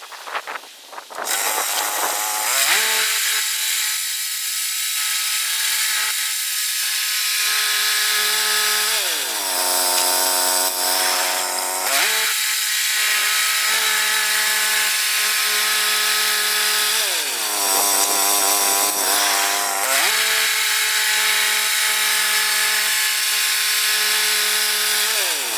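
Petrol engine of a Woodland Mills HM122 portable bandsaw mill running at speed while sawing cedar, its pitch rising to a steady run about a second in. Its speed sags and recovers twice in the middle and once more near the end.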